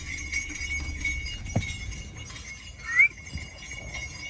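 Small ghungroo bells on a sugarcane juice crushing machine jingling steadily as the machine runs, with one short rising squeak about three seconds in.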